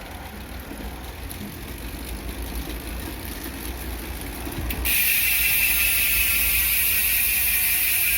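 Speedone Soldier bicycle hub's freehub ratchet buzzing as the wheel coasts. A loud, steady, high buzz starts suddenly about five seconds in, after quieter, slowly rising noise.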